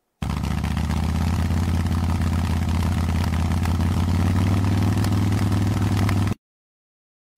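Motorcycle engine running steadily at idle, a low, even engine note that cuts off suddenly about six seconds in.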